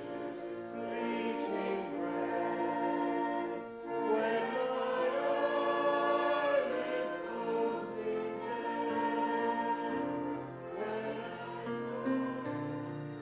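A congregation singing a hymn together, many voices on slow, held notes.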